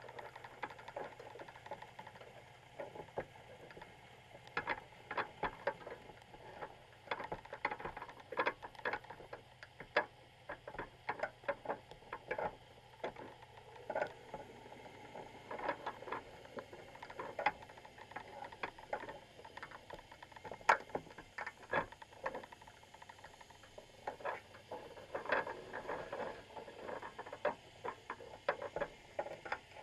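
Irregular clicks and taps picked up underwater inside a baited crab pot, coming in clusters of several a second, from crabs and small fish moving over the wire mesh and bait cage. One click about two-thirds of the way through is louder than the rest. A faint, steady low hum runs underneath.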